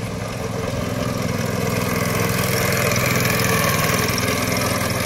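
Small go-kart engine running steadily as the kart drives past, growing somewhat louder as it comes close.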